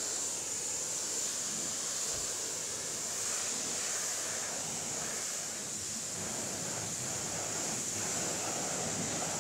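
A pressure-washer lance spraying a steady high-pressure jet of water onto a car's bonnet and front bumper, rinsing off foam: a continuous hiss of spray.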